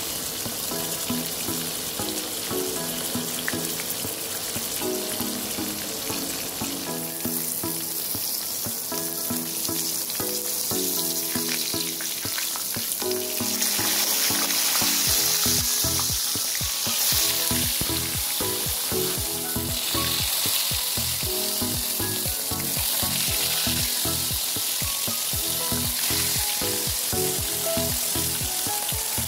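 Rohu fish steaks frying in hot oil in a pan, a steady sizzling hiss that grows louder about halfway through as the pieces are turned with a metal spatula. Background music plays under it.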